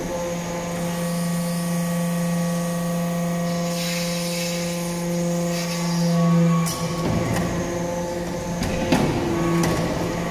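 Hydraulic briquetting press for metal chips running, its pump unit giving a steady pitched hum with a hiss about four seconds in. The note swells and then drops abruptly near seven seconds in, followed by a few sharp knocks.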